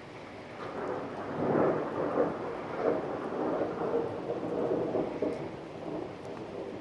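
A peal of thunder over steady light rain: the rumble swells about half a second in, peaks loudest over the next couple of seconds in several rolling surges, then dies away near the end.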